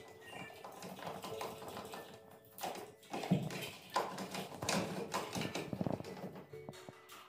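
Background music, with a run of irregular clicks and taps in the middle few seconds from a recessed spotlight fitting being handled and pushed up into its hole in a gypsum board ceiling.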